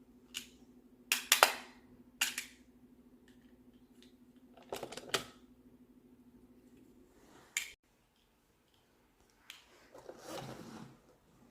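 Plastic magnetic building tiles clicking and clacking against each other as they are set in place, a handful of sharp clicks spread over several seconds, then a brief rustle of tiles being shuffled near the end.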